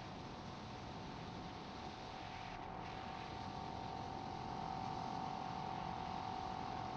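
650 motorcycle engine running at a steady cruising speed, heard as a steady drone over wind-muffled road noise, growing slightly louder in the last few seconds and dropping away at the very end.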